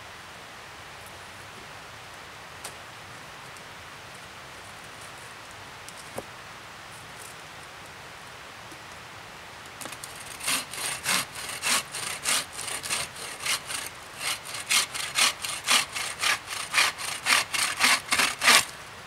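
Hand saw cutting through a log end: quick back-and-forth strokes, about three a second, start about halfway through and grow louder, then stop shortly before the end. Before the sawing there is only a faint background with a couple of light knocks.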